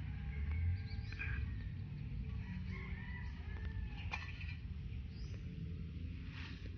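Birds calling in the background, several short calls, over a low steady rumble, with a sharp click about four seconds in.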